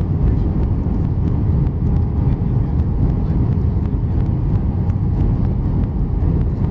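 Steady cabin noise inside an Airbus A319 on its arrival descent: a loud, even, low rumble of jet engines and airflow over the fuselage, with a faint steady tone above it.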